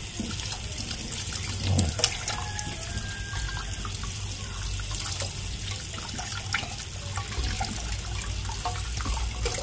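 Tap water running steadily into a stainless steel sink as raw chicken egg bag is rinsed by hand in a mesh strainer, with a few small splashes and clicks.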